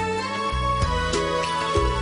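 Background music: a gentle instrumental score with sustained notes over a steady bass beat.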